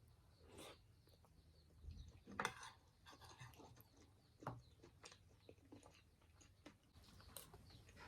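Quiet eating sounds: soft chewing and scattered small utensil clicks, with one louder noisy sound about two and a half seconds in.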